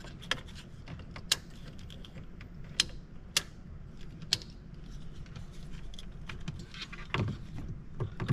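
Dashboard toggle switches for an aftermarket light bar and spot lights being flipped: about five sharp clicks in the first half, roughly a second apart, over a steady low hum. Rustling and thumps near the end.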